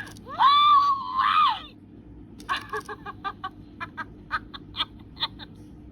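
Talking Jessie figure's recorded voice played through the toy's small speaker: a loud yelled whoop lasting about a second and a half, rising, held and falling away, followed by a run of short, quick clipped sounds at about three a second.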